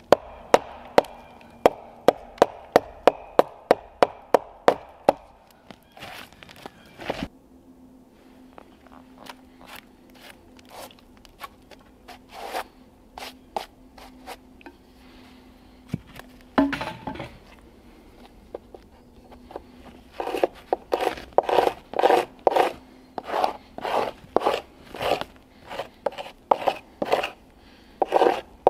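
A blade chopping against wood in quick, even strokes, about three a second. The strokes run for the first few seconds, fall to scattered strikes through the middle, then pick up again in a steady run near the end.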